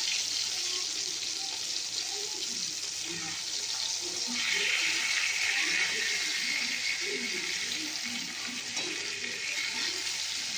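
Pieces of katla fish sizzling as they shallow-fry in hot oil in a steel wok, a steady hiss that brightens for a second or two near the middle as a spatula moves the pieces.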